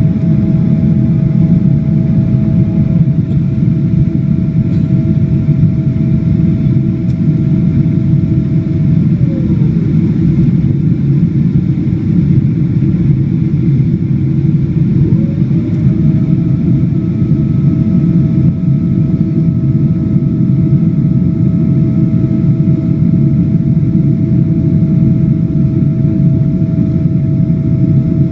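Boeing 777-200 jet noise: a loud, steady rumble with a thin whine above it that glides down and fades about a third of the way in, rises back in about halfway, and glides down again at the end.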